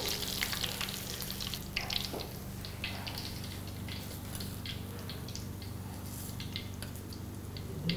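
Hot oil crackling and spitting faintly around a frying kakiage fritter of vegetables and seafood, scattered small ticks over a steady low hum, with a small knock near the end.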